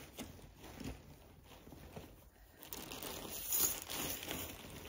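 Plastic bags crinkling and rustling as bagged craft supplies are handled, louder in the second half.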